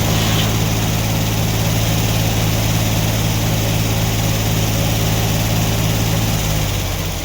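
Sawmill running under power, its engine holding a steady pitch with a hiss over it, easing off slightly near the end.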